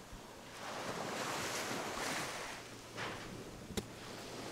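Small waves washing onto a sandy beach, the surf noise swelling and fading a few times. A single sharp click sounds near the end.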